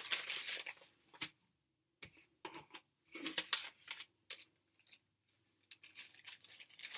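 Paper being handled: quiet, intermittent rustles and small ticks, with short gaps between them.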